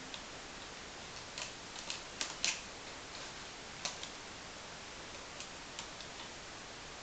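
Faint, irregular clicks and scratches of a cat's claws catching on a sisal-rope scratching post as it paws and grabs at it, over a steady background hiss; the clicks cluster between about one and a half and two and a half seconds in, with a few more scattered later.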